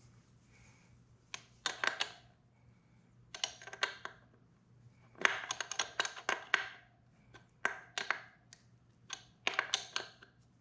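Metal hand wrenches clicking and clinking on the chain-adjuster bolts of a dirt bike's swingarm, in about six short spells of rapid clicks, during chain tension adjustment.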